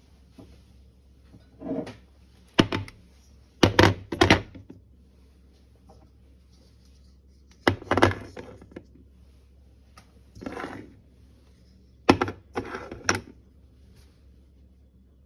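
Glass jars with screw lids being set down and handled on a glass-topped induction hob: a series of sharp clinks and knocks in several clusters, the loudest a few seconds in, at about eight seconds, and near the end.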